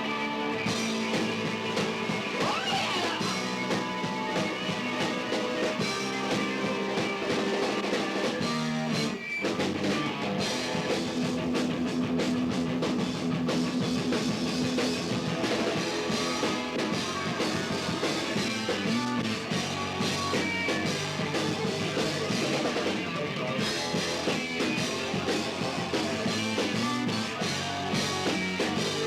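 Heavy metal band playing live: two electric guitars, bass and drum kit, with a brief break about nine seconds in before the band comes back in.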